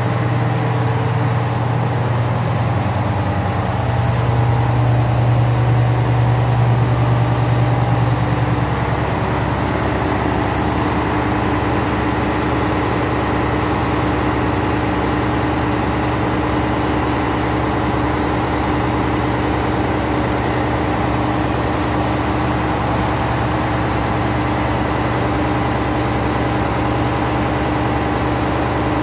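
Ship's engine room machinery running: the steady, deep hum of diesel generator engines with a few thin constant tones above it. It swells for a few seconds about four seconds in, then holds level.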